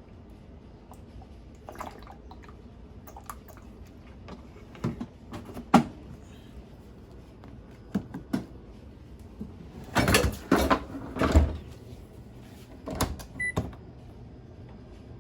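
Dishwasher being handled: scattered clicks and knocks, with a louder run of knocks about ten seconds in, and a short electronic beep near the end.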